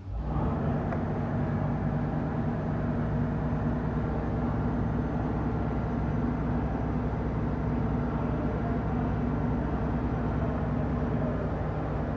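A car engine running steadily, with an even, unchanging note, starting abruptly.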